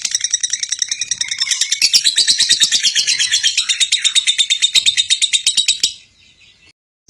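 Lovebird's long 'ngekek' song: a fast, unbroken run of shrill chattering notes that grows louder about two seconds in and cuts off abruptly about six seconds in.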